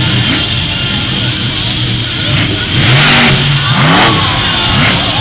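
A monster truck's engine revving hard as it accelerates into a jump. The engine note holds steady, then climbs in several rising sweeps in the second half, with a loud full-throttle surge about three seconds in.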